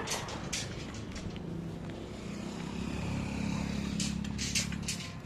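A motor vehicle's engine running, getting louder through the middle and easing off near the end, with a few sharp clicks and knocks at the start and again near the end.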